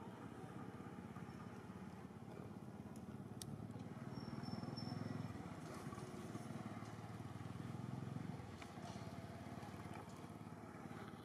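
Faint low rumble of a distant engine, swelling from about four seconds in and easing a little past eight seconds, with a few faint clicks.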